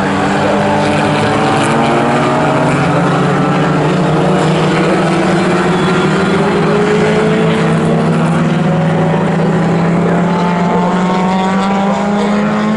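Engines of classic GT racing cars running hard on a circuit: a steady engine note under another that climbs slowly in pitch as a car accelerates away.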